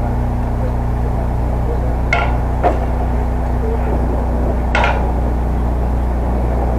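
Steady low hum with two sharp knocks about two and a half seconds apart, the first with a brief metallic ring.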